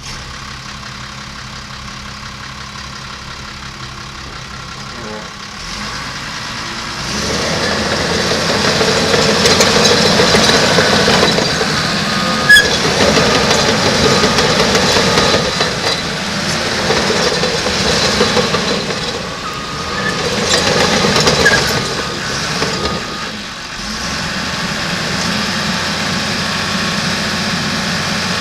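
Cat D5G XL crawler dozer's diesel engine running, first at a steady idle, then revved up about six seconds in and held high with rises and dips, a whine coming and going. There is a sharp click about twelve seconds in, and near the end the engine settles back to a steadier, lower speed.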